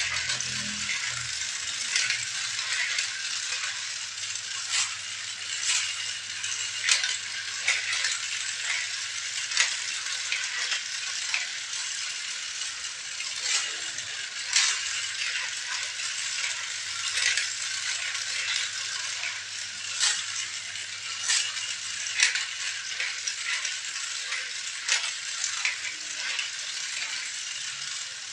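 Small plastic toy vehicles and parts rattling and clicking continuously as they are handled, with frequent sharp clacks.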